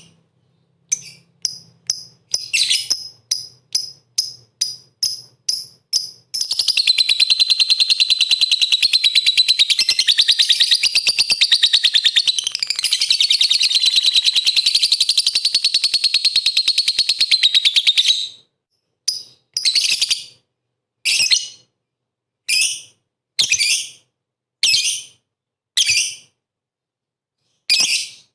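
Lovebird singing: a quick run of short, sharp chirps, then a long unbroken rapid chatter lasting about twelve seconds, then single chirps about a second apart.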